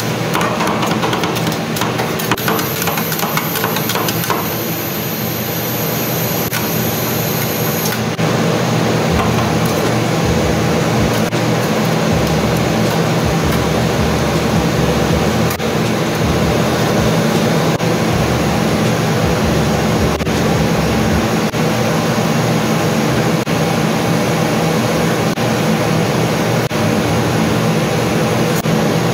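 Refrigeration unit of a rolled ice cream cold plate running with a steady, loud hum. Metal spatulas scrape and tap on the stainless-steel plate as the sorbet is chopped, spread and rolled.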